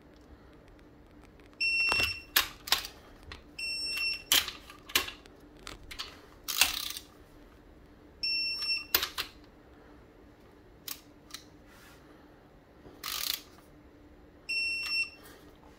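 A digital torque wrench beeps four times, each beep short and high-pitched, as each bolt reaches the wrench's set torque of 20. Between the beeps come the sharp clicks and short clatter of its ratchet head turning the bolts.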